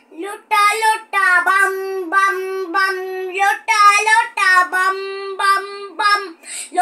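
A young boy singing in a high voice, in short phrases with long, level held notes.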